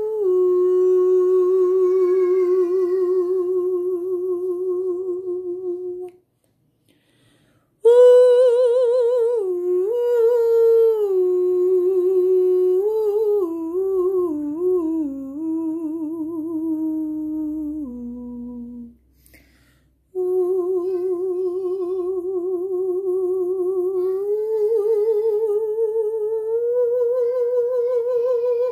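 A single voice humming long held notes with a wavering vibrato, in three long phrases with short silent breaths between them. The middle phrase steps down through several notes.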